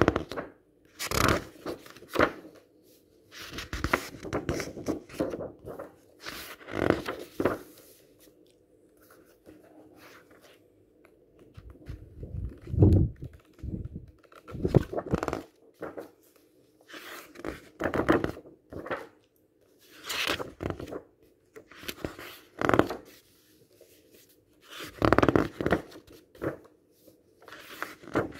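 Pages of large softcover books turned quickly by hand, each turn a papery rustle, coming every second or two with a quieter lull about eight to eleven seconds in.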